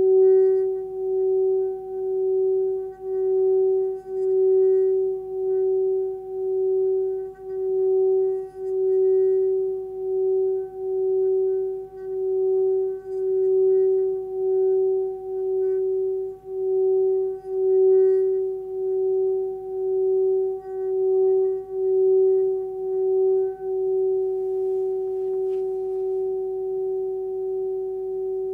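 Hand-forged Sun Moon singing bowl (13.8 cm, F# at about 380 Hz) sung by a stick rubbed around its rim: a steady hum with a second, higher tone above it and a regular wah-wah pulsing about once a second. Near the end the stick comes off and the bowl rings on evenly, slowly fading.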